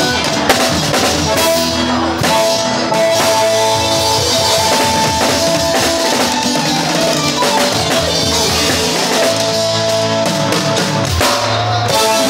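Live band music led by a drum kit with cymbals, heard from right beside the kit, with held melody notes over the beat.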